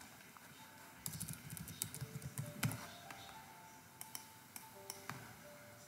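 Faint computer keyboard typing: a quick run of key clicks about a second in, then a few scattered clicks. Soft held notes of background music sound underneath.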